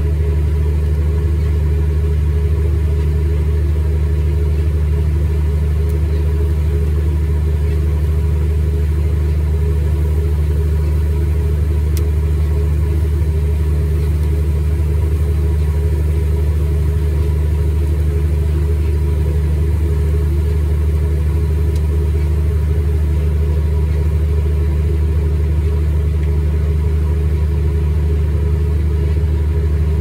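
John Deere S670 combine running steadily under load, heard from inside the cab as a constant low drone while it unloads grain into a cart alongside.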